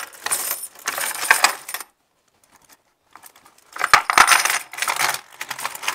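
A heap of worn Victorian pennies tipped from a cloth bag into a shallow wooden drawer, jingling and clinking. It comes in two spells with a pause of about a second between them, and the second spell has a few sharper knocks.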